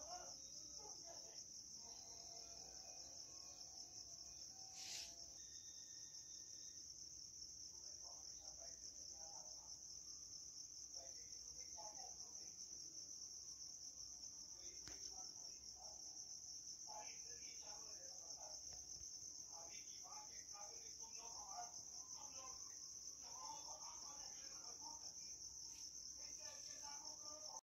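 Faint, steady high-pitched chirring of insects such as crickets, with faint scattered background sounds beneath it.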